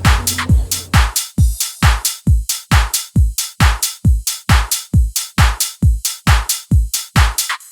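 Electronic dance music: a steady kick drum at a little over two beats a second with hi-hats between the kicks. The bass line drops out about a second in, leaving the beat bare.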